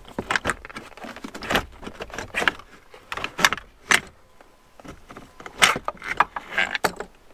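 Irregular plastic clicks, knocks and rattles from a 2012-up Chevrolet Sonic's manual shifter assembly and console trim as they are wrestled loose and tilted out of the center console by hand. The sharpest knocks come around the middle and a little past two thirds of the way through.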